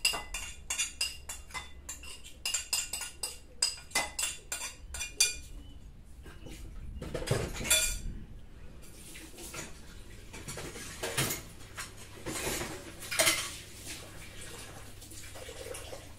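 Dishes and cutlery clinking in quick light knocks for the first six seconds or so, then a few louder scrapes and clatters.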